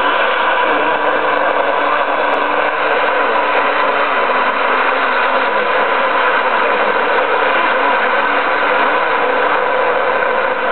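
A small portable radio receiving a homemade micro-radio transmitter and caught in a feedback loop, giving a loud, steady, noisy drone with several held tones from its speaker.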